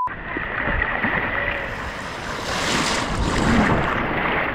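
Ocean surf: a wave breaks and washes up the beach, the rushing hiss swelling about two seconds in and easing off near the end, over a steady rumble of wind on the microphone.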